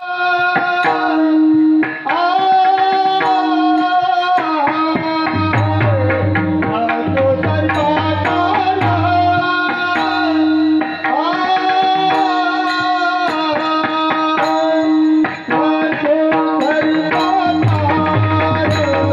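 Indian devotional music: a tabla rhythm under a steady drone, with a melody line gliding above it.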